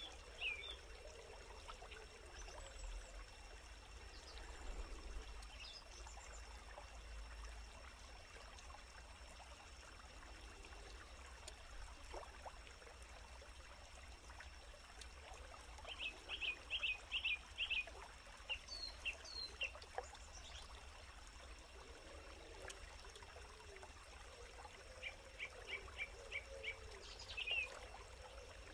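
Faint forest ambience: a bird calling in quick runs of about six short, high chirps, once past the middle and again near the end, with a few single calls between, over the faint, steady trickle of a stream.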